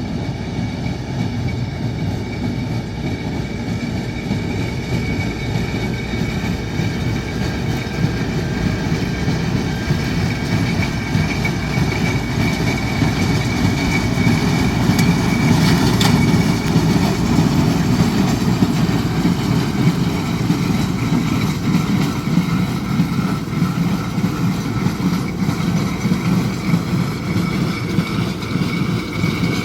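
Tractor engine running steadily under load while pulling a working hay baler, a continuous loud machine drone with a brief click about halfway through.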